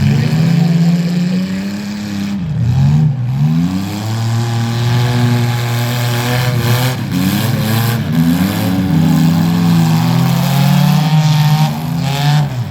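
Demolition derby cars' engines revving, several at once, their pitch rising and falling as the drivers work the throttle.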